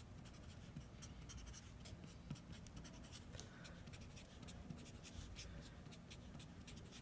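Felt-tip marker writing on paper: faint, short scratchy strokes as numbers and symbols are written out.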